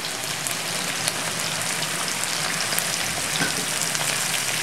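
Halved fingerling potatoes frying in hot oil in a pan, a steady sizzle with scattered small crackles as knobs of butter are dropped in and melt.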